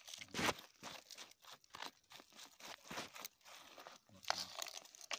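A hand scraping and scooping loose gravelly soil and small stones, an irregular crunching and scratching.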